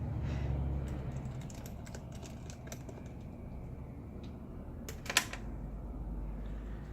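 Light, scattered clicks and taps of a T8 Torx screwdriver working the display-hinge screws of a 2016 MacBook Pro, with a sharper double click about five seconds in, over a low steady hum.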